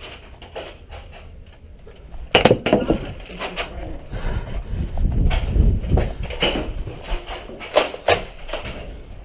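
Irregular knocks and clatter from movement and handling during a foam-dart game, with sharp strikes about two and a half seconds in and again near the eight-second mark, and a low rumble in the middle.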